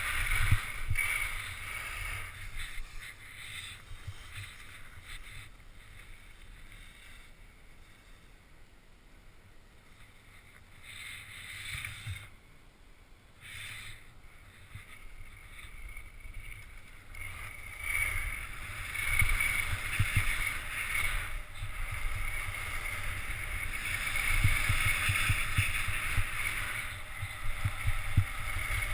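Skis sliding and scraping over groomed snow, with wind rushing over the camera's microphone. It is loud at the start, dies down for a stretch in the middle, then builds again from about two-thirds of the way in.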